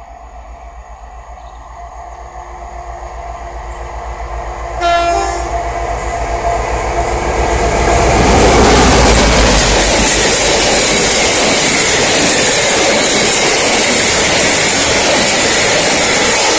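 A train approaching and passing: a low throbbing rumble grows steadily louder, a short horn blast sounds about five seconds in, and from about eight seconds the train goes by in a loud steady rush of wheels on rails.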